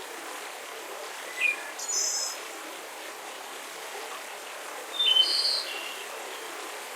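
Birds chirping in two short bursts, about a second and a half in and again about five seconds in, over a steady background hiss of outdoor ambience.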